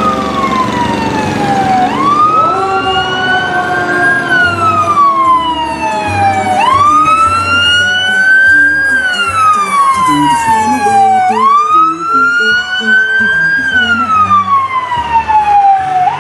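Fire truck sirens wailing, the pitch climbing and falling slowly about every five seconds. A second wail joins and overlaps about two seconds in.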